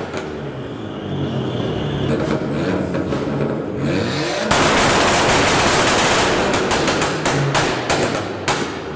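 Drift car's engine revving hard with rapid popping bangs from the exhaust. About halfway through, a loud rush of noise, the rear tyres spinning, takes over for a couple of seconds before the popping returns.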